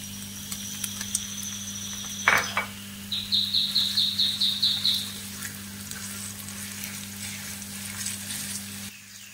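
Minced chicken and diced onions sizzling in a frying pan over medium heat while a plastic spatula stirs and scrapes them. Around the middle comes a quick run of about eight evenly spaced high chirps.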